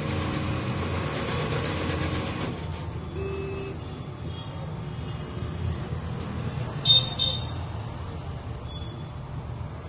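ATM cash dispenser running with a fast whirring rattle as it counts out the notes, stopping about two and a half seconds in. About seven seconds in the machine gives two short high beeps as the cash is presented for collection, over a steady low traffic rumble.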